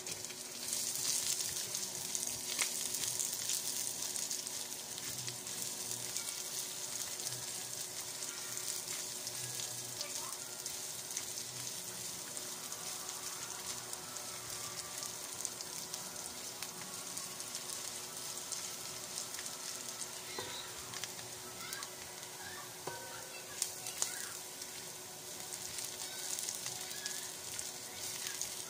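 Sliced garlic sizzling in hot oil in a frying pan as it is sautéed and stirred with a slotted spatula. The sizzle is a steady hiss, loudest in the first few seconds, with a few sharp taps of the spatula against the pan near the end.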